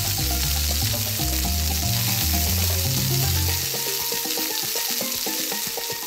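Sizzling sound effect of frying, a steady hiss for a toy frying pan and fried egg, over background music whose bass line drops out a little past halfway.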